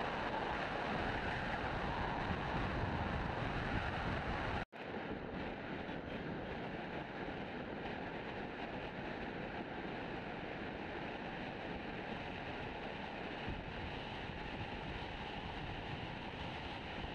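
Steady wind and road noise from a moving vehicle, with wind rushing over the microphone. About five seconds in the sound cuts out for an instant, then returns a little quieter.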